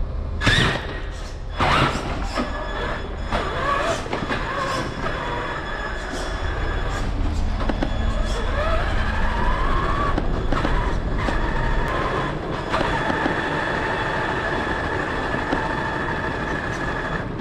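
Traxxas Summit RC monster truck driving, heard up close from on board: its electric motor and gearbox whine, rising and falling with the throttle, over a rumble of tyres on the hard floor. There are sharp knocks near the start as it bumps along.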